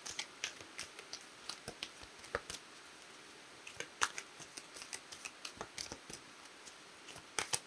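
A deck of affirmation cards being shuffled and flicked through by hand: irregular soft clicks and taps, several a second, with pauses between runs.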